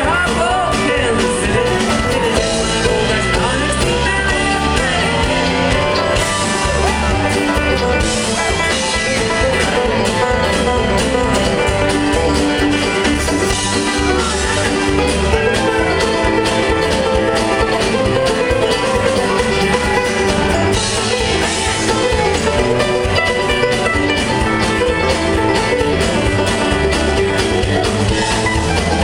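Live band playing a bluegrass-rock song, with acoustic and electric guitars, drums and blues harmonica, and some singing.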